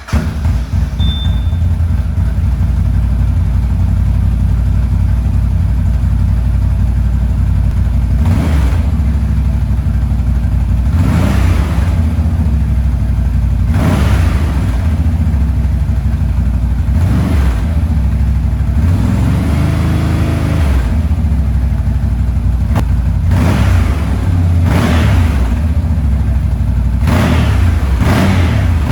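CFMOTO CForce 1000 ATV's V-twin engine catching and settling into a steady idle. From about eight seconds in, the throttle is blipped again and again in short revs, with one slower rev rising and falling in the middle.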